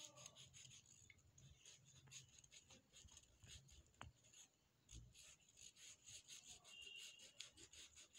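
Faint, fast scratchy rubbing, about five strokes a second, with a short pause about halfway through.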